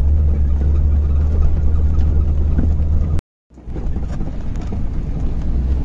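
Land Rover Defender's swapped-in Corvette LS3 6.2-litre V8 running under way, heard from inside the cabin as a deep, steady drone with road noise. The sound cuts out completely for a moment about three seconds in, then the same engine drone returns.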